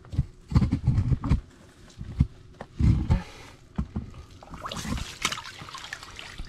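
A series of low thumps and rumbles, then a short splash about five seconds in as a burbot slides back down a water-filled ice-fishing hole.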